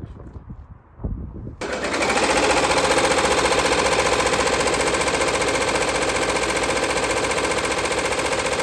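Multi-needle embroidery machine stitching into a knitted beanie hat, its needle hammering up and down in a fast, steady rhythm. It starts suddenly about a second and a half in, after faint wind.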